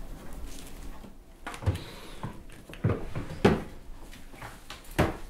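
Irregular knocks and clatter of objects being handled, about five in all, the loudest near the middle and again near the end.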